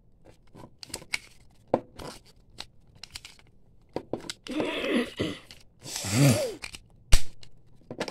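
Plastic clicking and scraping of a Minions-themed Happy Meal puzzle cube being twisted by hand, its layers turning stiffly and badly. Two longer rasping noises come about halfway through, and a single sharp knock near the end is the loudest sound.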